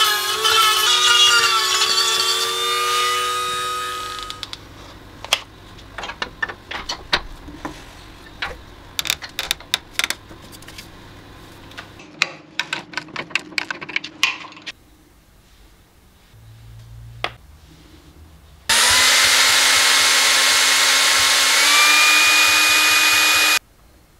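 A handheld rotary carving tool whines as it grinds out the inside of a wood blank, fading away about four seconds in. Scattered clicks and knocks follow. Near the end a drill with a mixing paddle runs for about five seconds, stirring resin, its pitch stepping up once before it stops suddenly.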